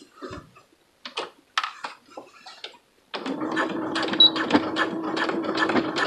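A few soft handling noises as the fabric is settled under the presser foot, then about three seconds in a domestic sewing machine starts stitching at a steady speed: a rapid needle clatter over a steady hum.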